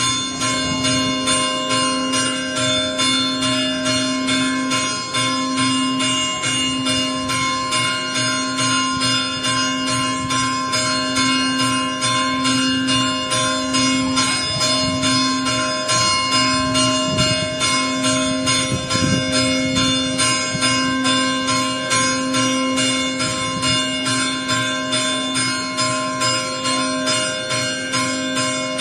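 A church bell tuned to C4 (Do4), the largest of three new Allanconi bells, struck in a fast, unbroken chime with evenly repeated strokes. This weekday chime calls the faithful to evening mass a quarter of an hour before it begins.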